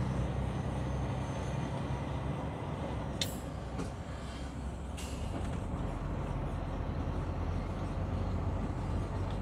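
Truck engine running steadily on the move, a low drone over road noise, with two short sharp sounds about three and five seconds in.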